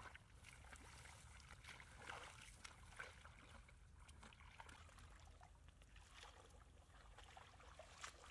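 Faint, irregular small splashes and sloshing of hands groping in shallow muddy water, with a few slightly louder splashes.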